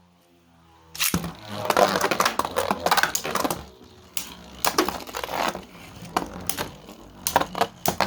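Spinning Beyblade tops clashing in a plastic stadium: a burst of sharp clicks and knocks about a second in, then repeated rattling collisions and scraping.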